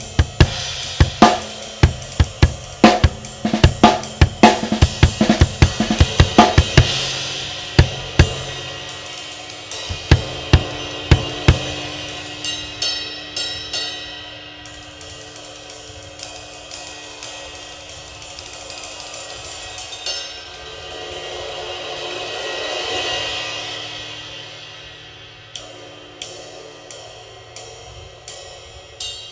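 Drum kit played to demo a Zildjian Avedis 24-inch Medium Ride cymbal: a groove with snare and bass drum under the cymbals for about the first twelve seconds, then cymbal ringing alone with a swell near the middle, and near the end steady single strokes on the ride, about two a second.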